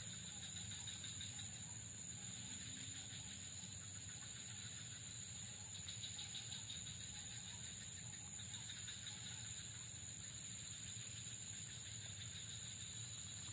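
Steady insect chorus with a constant high buzz and rapid pulsing trills that swell twice in the middle, over a faint low rumble.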